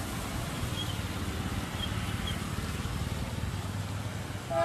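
Street traffic on a wet road: a steady low rumble of passing car and motorbike engines with tyre noise. There are a few faint high chirps in the first half and a short pitched tone near the end.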